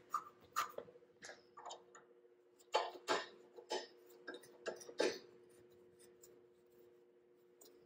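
Irregular sharp metal clicks and clinks as a thread-cutting die is fitted onto the end of an aluminum rod clamped in a bench vise, busiest around the middle and dying away in the last couple of seconds, over a faint steady hum.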